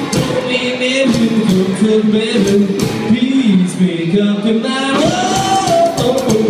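Rockabilly trio playing live: hollow-body electric guitar, slapped upright double bass and drum kit, with a man singing.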